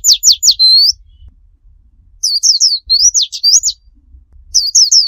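White-eye (pleci) singing its rapid 'tembakan' song: fast runs of high, sweeping whistled notes in three bursts, one at the start, one from about two seconds in, and one near the end.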